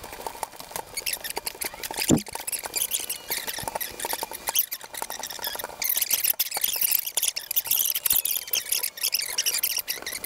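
Hands squishing a very wet, sticky pizza dough in a stainless steel bowl: a dense crackle of small wet smacks and squelches, heavier from about six seconds in. There is a single knock about two seconds in.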